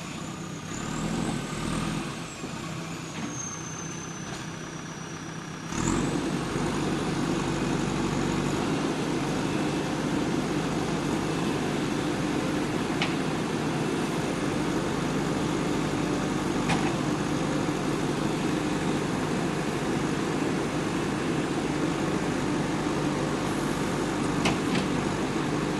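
Diesel engine of a backhoe loader or dump truck running steadily. It gets abruptly louder about six seconds in and then holds an even hum.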